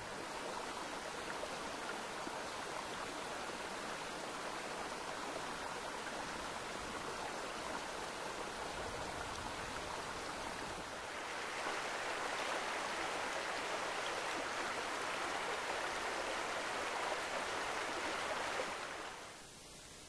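Creek water running through and over a beaver dam: a steady rushing that grows louder about halfway through and fades out near the end.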